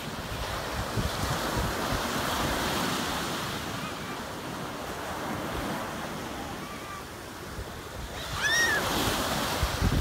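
Ocean surf breaking and washing up a sandy shore, a steady rush. Near the end a short high call rises and falls.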